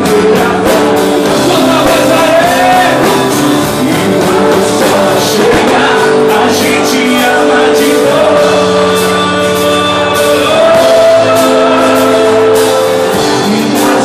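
Live sertanejo band music over a steady drum beat, with sustained melody lines and singing.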